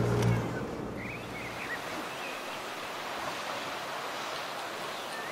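A car's low road rumble ends within the first second and gives way to a steady outdoor hiss of sea surf and wind, with a few short high chirps a second or two in.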